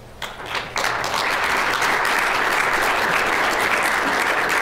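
Audience applauding: a few scattered claps, then full steady applause from about a second in.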